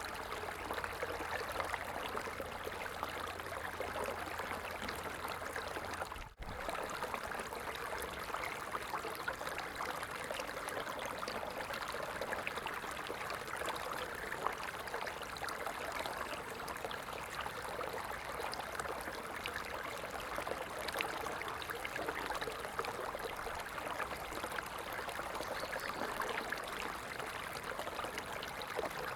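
A stream running steadily, with a dense trickle of many small splashes. The sound drops out for a moment about six seconds in.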